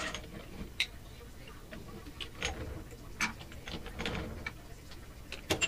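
A few light, irregular metallic clicks and ticks of hand tools and steel parts as the gib screws are worked out of a G0704 milling machine's column.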